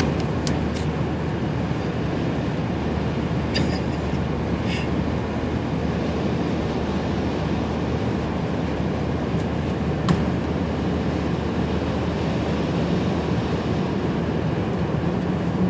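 Steady road, engine and wind noise heard from inside a car driving on an icy highway in a strong crosswind, with a few brief sharp clicks.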